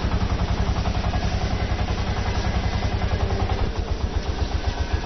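Engine of a homemade pepper-harvesting machine running with a steady, rapid low beat, which slows to a slower, uneven beat about four seconds in.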